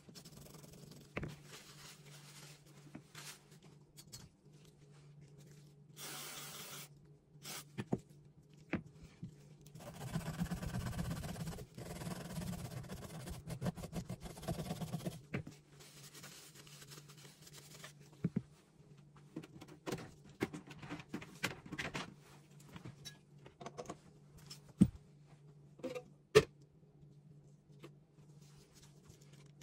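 A small cleaning brush scrubbing dirty metal parts of a disassembled Beretta, a rough scratching that runs steadily for several seconds in the middle. Later come scattered sharp clicks of parts and tools set down on the bench, with a steady low hum underneath.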